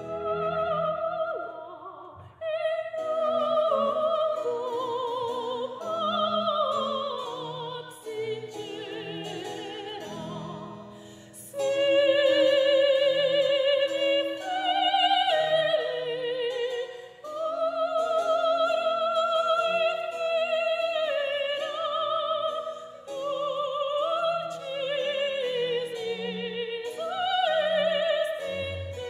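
Operatic singing: a high voice holding long notes with a wide vibrato, over orchestral accompaniment.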